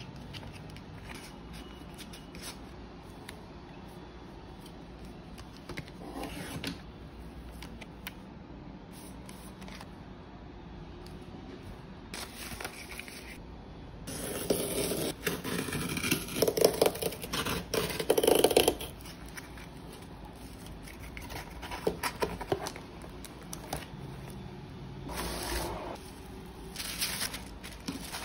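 Hands handling paper and cardboard: faint rustles, then several seconds of louder scraping and rustling around the middle as a pen is drawn along a ruler on flat cardboard, and a few more short rustles near the end.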